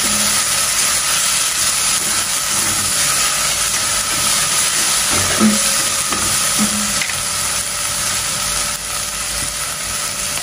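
Pounded garlic, shallots, chillies, turmeric and lemongrass sizzling steadily in a little hot oil in a pot, stirred with a spatula.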